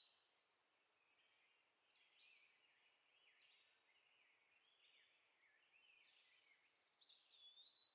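Faint birdsong from several birds: a clear whistled phrase at the start and again about seven seconds in, with varied chirping and twittering in between.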